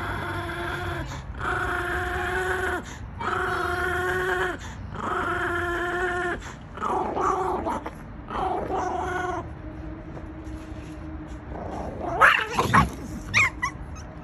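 Chihuahua growling in about six long, high-pitched, drawn-out growls with short breaks between them. About twelve seconds in, a brief scuffle breaks out with a sudden loud snarl and yelp, followed by a few short yips.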